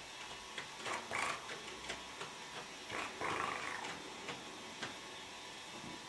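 Kittens playing on a fleece blanket: two short breathy sounds, one about a second in and a longer one about three seconds in, over small scattered clicks and scratches.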